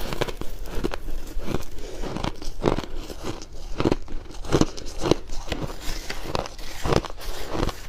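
Close-up chewing of fluffy freezer frost: dry, repeated crunches, about one to two a second.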